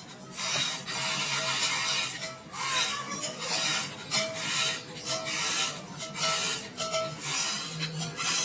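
Metal being hand-filed in repeated back-and-forth strokes, roughly one or two a second.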